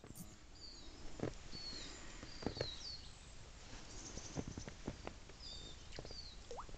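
Small birds singing in the woods: short high chirps that slide downward, repeated every second or so. A few soft knocks and taps sound in between.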